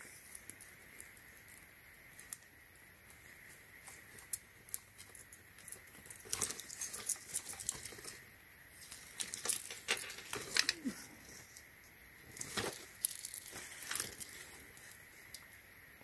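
Metal accessory chain and its trigger-snap clasps being handled: faint, scattered clicks and light jingling of the links, busiest in the second half, with a little paper rustling.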